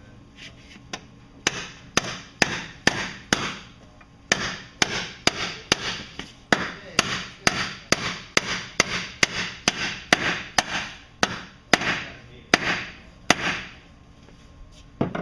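Hammer blows on a bearing driver, driving a new MerCruiser Bravo gimbal bearing into the gimbal housing. The strikes come steadily at about two a second, with a few light taps at first and a short pause after the first handful; each blow rings briefly.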